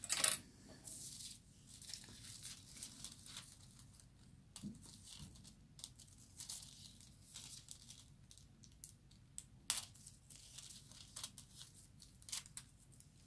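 Thin gold hot-foiling foil crinkling and tearing as it is handled and pulled apart by hand, with scattered sharp crackles; the loudest come right at the start and about ten and twelve seconds in.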